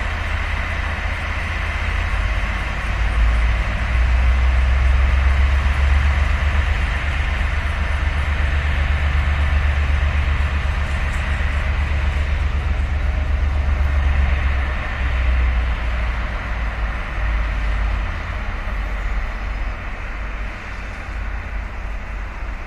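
Taiwan Railway diesel-electric locomotive running as the train moves slowly through the yard: a steady deep engine rumble that swells a few seconds in and eases off in the second half.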